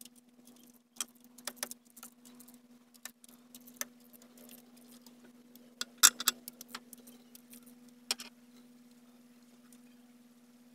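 Scattered metallic clicks and clinks of hand tools and parts being handled at the start of removing the fuel injectors from an Isuzu 6WG1 diesel's cylinder head. The loudest clinks come about six seconds in and just after eight seconds, over a faint steady hum.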